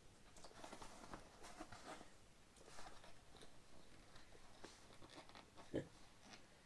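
Faint crinkling and rustling as the deflated vinyl of an Intex air bed is handled at its valve, with small clicks and one louder knock near the end.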